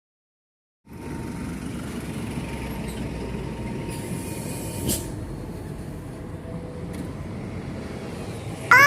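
Steady low noise of a heavy vehicle running, starting about a second in, with a short click midway. Right at the end a bus's musical telolet horn starts its gliding multi-note tune.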